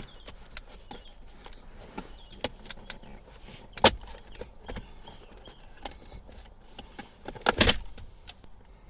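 Plastic center-console trim clips on a 2014–16 Lexus IS snapping loose as the navigation controller panel is pulled up by hand: scattered light clicks, a sharp snap about four seconds in and a cluster of snaps near the end.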